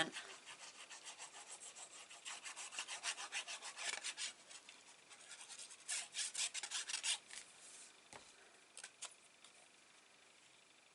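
Quick repeated rubbing strokes on paper for about four seconds, a second run of scraping strokes a little later, and two light clicks near the end.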